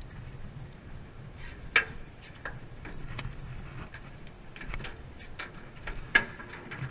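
Irregular clicks and knocks of a spinning rod and reel being handled as a small fish is reeled up and swung aboard, over a low steady hum.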